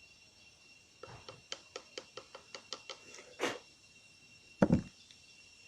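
A run of about ten light, evenly spaced mechanical clicks, about five a second, then a short rustle and a heavy low thud near the end.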